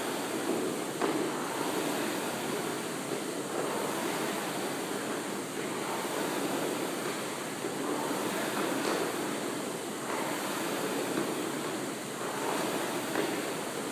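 A steady rushing noise that swells and fades every second or two.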